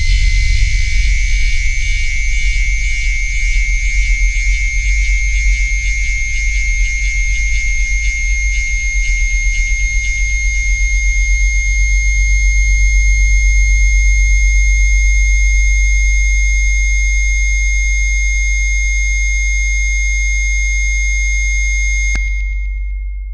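Electronic test signal: a deep steady bass tone layered with a piercing high tone and a shimmering band of still higher tones, all held unchanging and loud. About 22 seconds in, the high tones cut off and the bass tone fades away.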